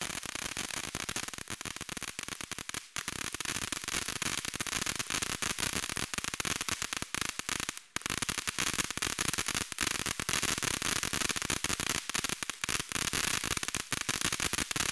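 World Class 'On The Fritz' fountain firework burning: a continuous hissing spray of dense, rapid crackles, with brief lulls about three and eight seconds in.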